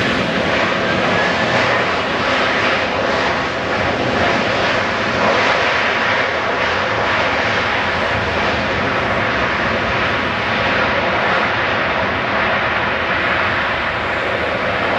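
Jet engines of a Boeing 767-300 on its landing roll, a loud, steady rush of jet noise that holds for the whole stretch.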